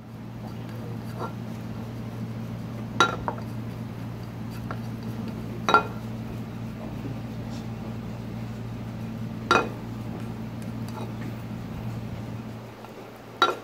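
A frying pan of bread cubes sautéing in butter, shaken and stirred with wooden chopsticks: four sharp, ringing clanks a few seconds apart over a steady low hum.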